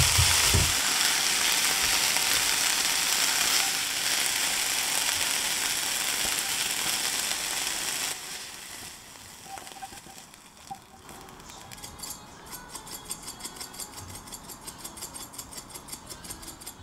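Tofu noodles sizzling in a nonstick frying pan, the hiss dropping away about eight seconds in. Then faint scrapes as the food is slid onto a plate. Near the end comes a quick, even rattle, about four shakes a second, as crushed red pepper flakes are shaken from a glass jar.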